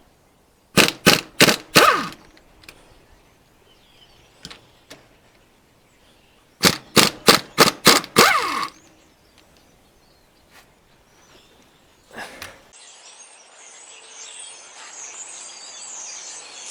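Impact wrench hammering in two short bursts of several rapid blows, about six seconds apart, breaking loose the U-joint cap bolts on a truck driveshaft. A steady hiss-like noise sets in near the end.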